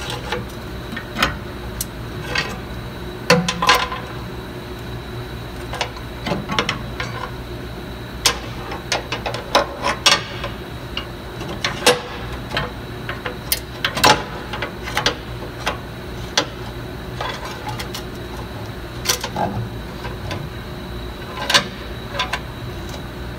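Irregular metallic clinks, taps and knocks of a steel bracket and hand tools, as an exhaust/transmission-mount bracket is worked onto its studs under the vehicle, over a steady background hum.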